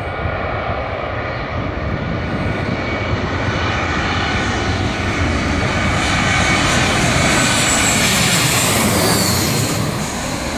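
Airbus A320-200 jet engines passing close by: a loud rushing roar with a steady high whine, building to its loudest about eight seconds in, then easing slightly.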